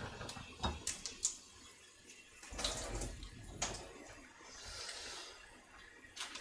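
Water splashing into a kitchen sink as a plastic tofu tub is drained and rinsed, after a few light clicks and taps of the tub and knife on the cutting board.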